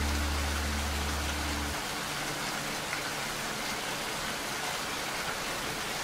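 Steady rain falling, an even hiss. A low held note of background music dies away about two seconds in, leaving the rain alone.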